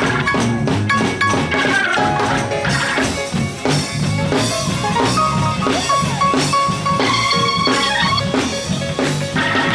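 Lively gospel church band music: a drum kit keeps a steady beat over a pulsing bass line, with some held higher notes above.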